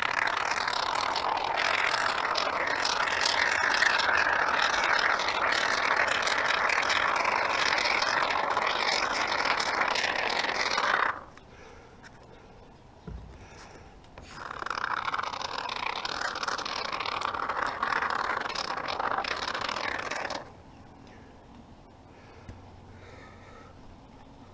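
Can of Great Stuff expanding spray foam hissing as foam is sprayed into the gaps between insulation boards, in two long sprays of about eleven and six seconds that start and stop sharply. A single knock sounds between the two sprays.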